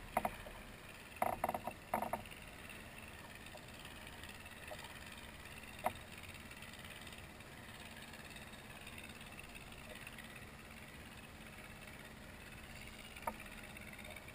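Water lapping faintly and steadily against a plastic kayak hull. There is a short cluster of knocks just over a second in, and single sharp clicks near six seconds and again near the end.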